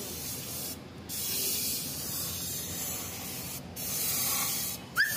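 Compressed-air paint spray gun hissing as paint is sprayed, stopping briefly three times. A short high chirp right at the end is the loudest sound.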